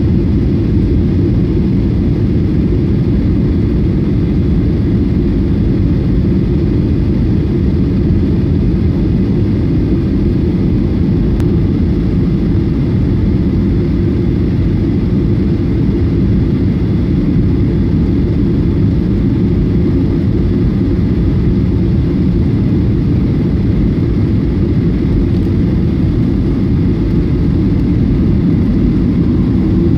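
Steady low roar of jet airliner cabin noise, engines and rushing air, on final approach, heard from inside the passenger cabin. A faint steady high tone rides over it.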